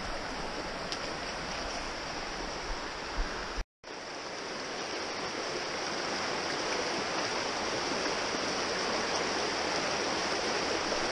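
Small stream's water rushing steadily over rocks and around a logjam. The sound drops out for a moment about a third of the way in, then the rushing returns a little louder.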